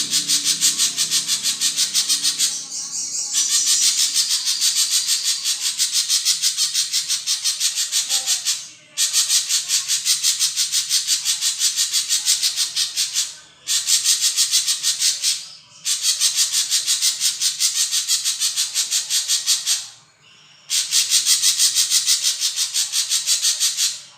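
Songbird giving a fast, dry rattling trill of rapid pulses, in long runs broken by a few short pauses.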